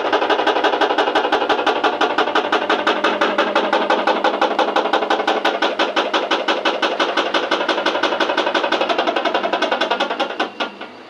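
Washing machine running with a loud, rapid, regular knocking, about eight knocks a second, the extraneous noise of a common fault. The knocking stops about ten and a half seconds in.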